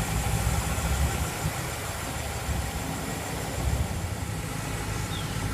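A car engine idling with a steady low rumble, a little quieter in the second half.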